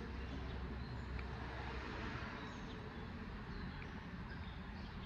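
Outdoor background: a steady low rumble with a few faint, short bird chirps scattered through it.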